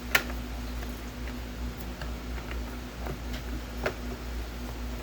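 Plastic clicks and taps from a coffee maker's cover being fitted back on: one sharp click just after the start, then scattered lighter taps, over a steady low hum.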